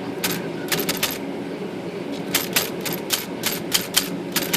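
Voss manual typewriter's type bar being struck again and again with sharp clacks: a few strokes, a pause of about a second, then an even run of about four strokes a second. The key is working again after lacquer thinner was flushed into its sticky type-bar pivot.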